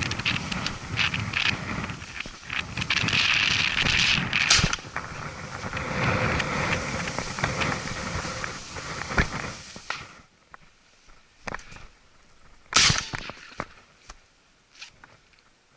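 Strong, gusty wind buffeting the microphone, which dies away about ten seconds in. A few sharp knocks break through, the loudest near the end.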